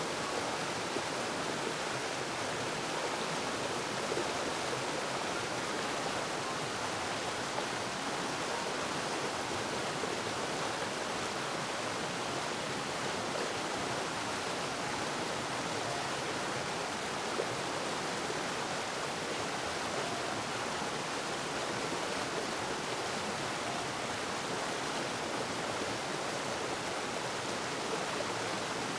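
Steady rush of flowing water, a stream or small cascade running without a break.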